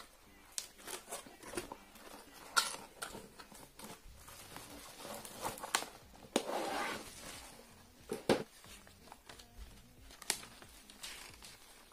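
A cardboard box and its paper and plastic packing being handled and unpacked by hand: rustling, crinkling and scraping, with scattered clicks and a few louder rustles.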